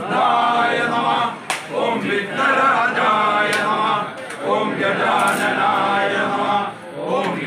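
Several male priests chanting Sanskrit archana mantras together in a laksharchana, phrase after phrase with short pauses between lines.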